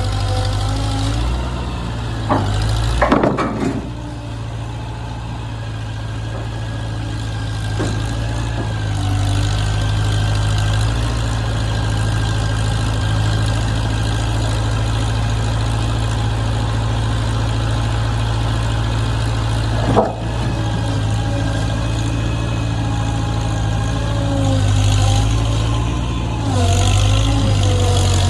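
An engine running steadily, with a few sharp metal clanks: a cluster about two to three and a half seconds in and one more about twenty seconds in. Near the end the engine gets louder and its note wavers, as if taking on load or revving.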